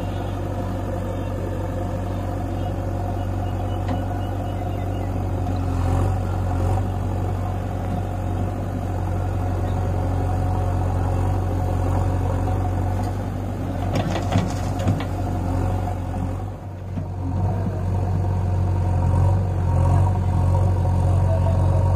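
John Deere tractor's diesel engine running steadily, with the backhoe loader's diesel also running. The engine sound dips briefly about three-quarters through, then comes back a little louder; a few short clatters come shortly before the dip.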